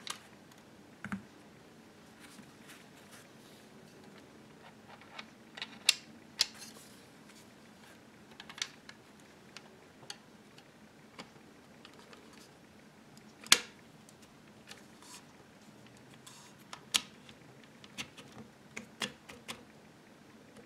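Irregular clicks and clacks of a BRS-99 carbine's metal and plastic parts being handled and fitted together, including its steel-rod folding stock and buttplate. A few sharper clacks stand out: about six seconds in, midway, and later around seventeen seconds.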